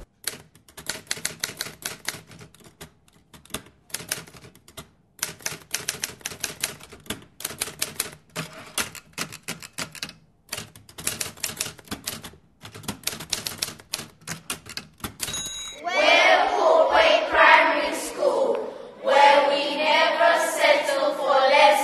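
Fast, irregular clicking in runs of a second or two with short breaks between them. Near the end it stops and voices take over, louder than the clicking.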